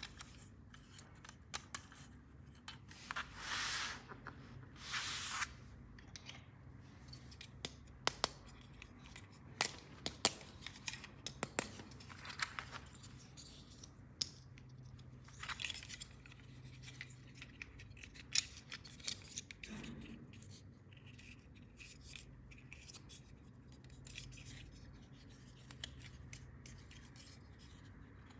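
Plastic toys and packaging handled close to the microphone: many sharp clicks and taps, with a few short rasping, cutting or rustling sounds about three, five and twelve seconds in.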